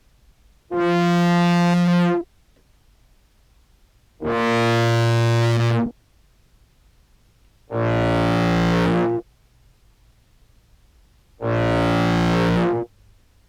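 Contrabass clarinet notes through an envelope filter, octave pedal and fuzz: four separate sustained, buzzy notes at different pitches, each about a second and a half, with short silent gaps between. The fuzz brings out a key click at the start of each note, which the envelope filter set near its maximum still does not fully hide.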